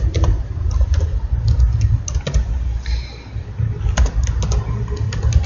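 Typing on a computer keyboard: irregular clicking keystrokes over a steady low rumble.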